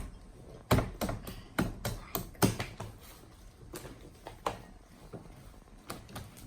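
Homemade slime being squeezed and stretched by hand, giving an irregular series of sharp wet clicks and pops, several in quick succession over the first couple of seconds, then a few scattered ones.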